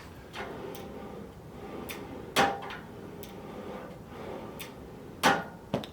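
Drawer of a newly assembled glass computer desk being slid open and shut, with a sharp knock about two and a half seconds in and another near the end, and a few lighter clicks between.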